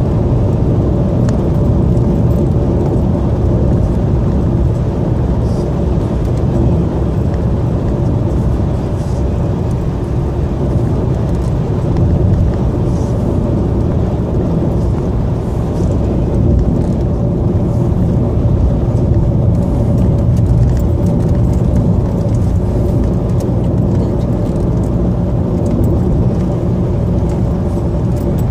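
Car driving at a steady speed on an asphalt road, heard from inside the cabin: an even low rumble of engine and tyres that does not change.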